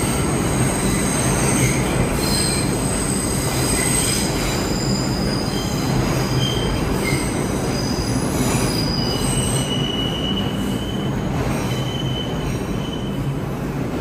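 New York City Subway R142-family train moving along the platform, its wheels squealing in several high pitches that come and go over a steady, loud rumble.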